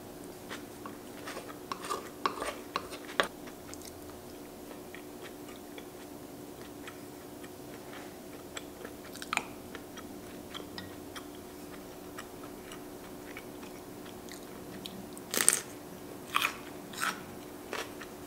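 Close-up sounds of someone eating: chewing with short crunchy bites and mouth clicks, coming in small clusters, the loudest few about three quarters of the way through, over a faint steady hum.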